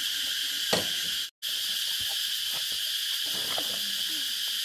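Steady high-pitched chorus of insects chirring. There is a single knock a little under a second in, and a split-second cut to silence just after it.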